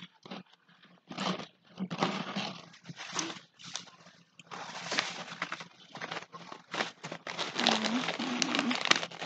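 Clothing fabric rustling and brushing close to the microphone in irregular bursts as garments are handled and put on, with a couple of brief murmured vocal sounds near the end.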